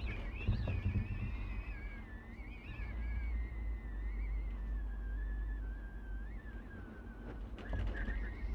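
Wind howling with a wavering whistle that slowly sinks in pitch and rises again near the end, over a steady low rumble of wind.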